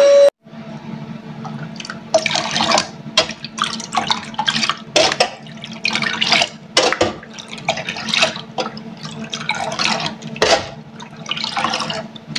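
Water splashing and pouring in irregular bursts as a cup is dipped into hibiscus flowers steeping for bissap, over a steady low hum.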